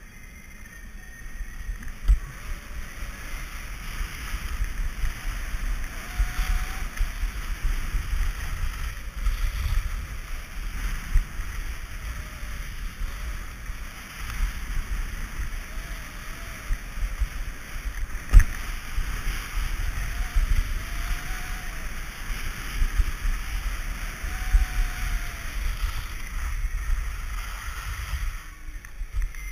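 Rushing wind noise on the microphone and the hiss of skis or a snowboard sliding fast over packed snow on a descent, with a few sharp knocks, the loudest about eighteen seconds in.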